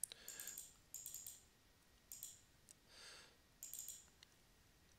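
Faint computer mouse clicks, in five quick runs of two to four clicks each.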